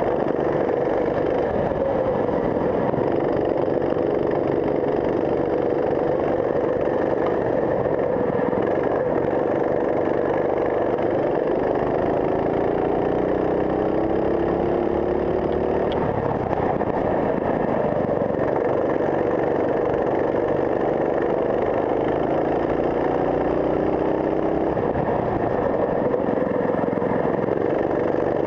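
Racing kart engine heard from on board, running hard throughout. Its pitch climbs twice as the kart accelerates, about halfway through and again near the end, and drops back in between.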